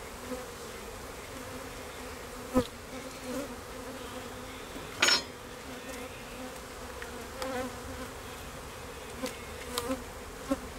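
Honey bees buzzing over an open hive, a steady hum, with two sharp knocks about two and a half and five seconds in.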